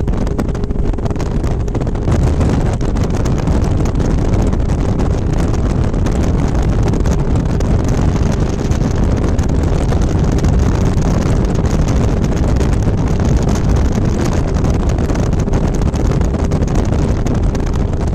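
Heavy wind buffeting the microphone on a bass boat running at speed across open lake water, with the steady drone of its outboard motor underneath.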